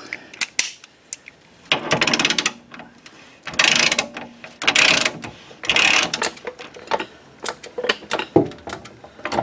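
Socket ratchet clicking in four short runs of rapid clicks as sump guard bolts are undone, with scattered single tool clicks between and a knock near the end.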